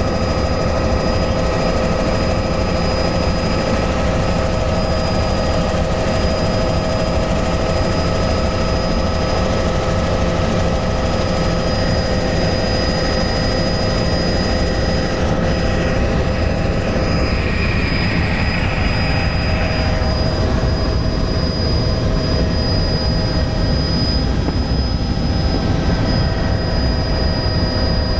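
Helicopter in flight heard from inside the cabin: a steady loud engine and rotor noise with several steady tones and a thin high whine. A slightly higher tone joins for a few seconds past the middle.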